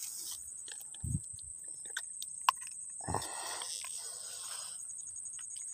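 Handling noise while a freshly caught snakehead is held up close: a few low thumps and scattered clicks, one sharp click about halfway through. A thin, steady high-pitched whine sits underneath.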